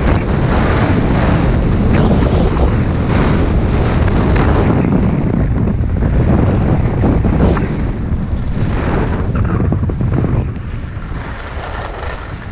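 Wind buffeting the microphone of a camera moving fast downhill, mixed with the hiss and scrape of edges sliding on snow through the turns. The rush eases and gets quieter in the last few seconds.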